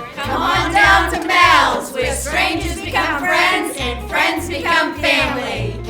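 Music: a song with a sung vocal line over a steady, pulsing bass line.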